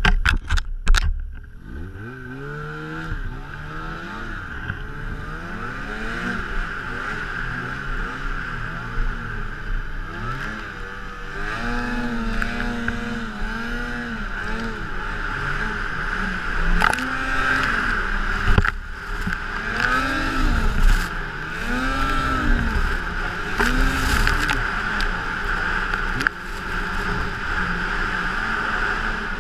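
Snowmobile engine revving up and down while the sled runs through deep fresh powder, its pitch rising and falling again and again. There are a few sharp knocks in the first second.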